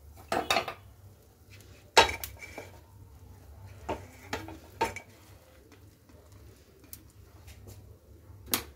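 Stainless steel plate clinking and knocking against the rim of a non-stick frying pan as a cooked snack cake is slid off the plate into the pan: a few separate knocks, the loudest about two seconds in, with a faint steady low hum beneath.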